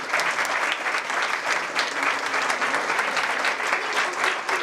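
Audience applauding: many people clapping together in a dense, steady mass of hand claps.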